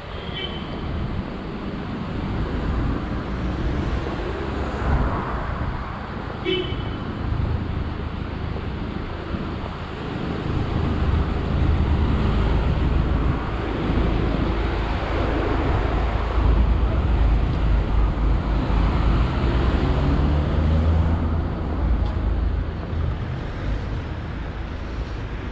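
City street traffic: motor vehicles running and passing, with a low engine rumble that grows louder about ten seconds in.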